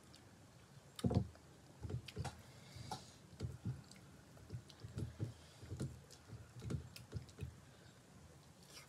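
A person eating dhido and mutton curry by hand, with soft wet chewing and mouth sounds at about two a second.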